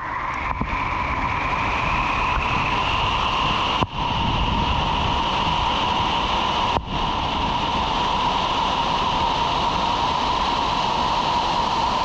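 Grand Falls on Shoal Creek rushing: a steady, loud roar of falling water, dropping out briefly twice.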